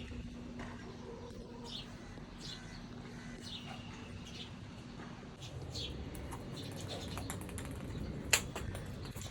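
Short high bird chirps repeating every half second or so over a low steady hum, with one sharp click near the end.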